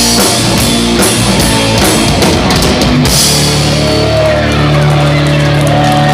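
Rock band playing with drum kit and electric guitar; about three seconds in the drums stop and the band holds a sustained chord that rings on.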